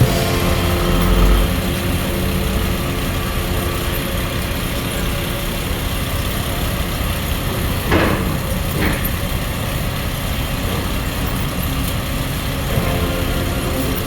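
Excavator's diesel engine running steadily, with two short knocks close together about eight seconds in.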